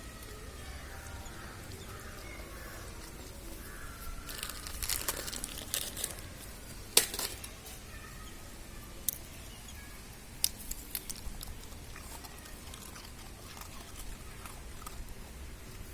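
Puppies whining faintly at first, then rustling and crinkling noises and several sharp clicks, the loudest about seven seconds in.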